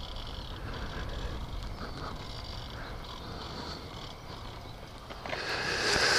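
Low, steady rumble of wind and rolling noise on a helmet microphone as a motorcycle coasts slowly with its engine off. Near the end the rider breathes out, a rushing breath into the mic.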